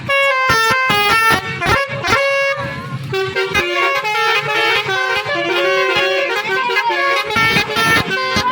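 Basuri multi-tone musical bus air horn playing a melody, a run of short horn notes stepping up and down in pitch.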